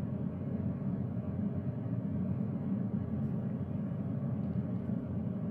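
A steady low background hum, even throughout, with no distinct sounds over it.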